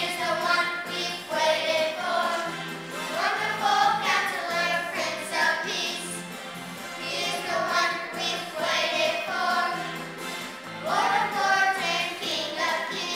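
A song sung over musical accompaniment, with a steady low backing beneath the voice.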